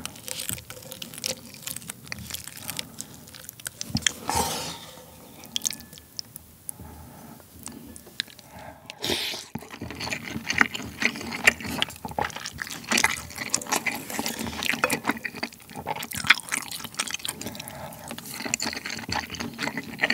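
A wooden spoon stirring and breaking up slightly hardened cold rice in spicy ramen broth, with wet clicks and liquid splashing, followed by spoonfuls being eaten: wet slurping and chewing close to the microphone.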